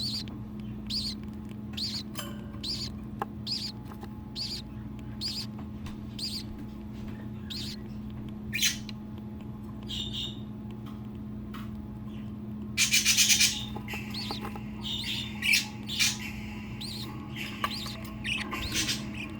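Newly hatched budgerigar chick peeping in short high calls about once a second, the begging calls of a chick being fed. About thirteen seconds in comes a louder harsh burst lasting about a second, followed by quicker, more irregular chirps, over a steady low hum.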